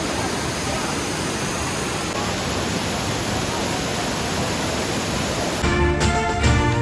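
Steady rushing roar of a waterfall. About five and a half seconds in, music with a beat cuts in over it.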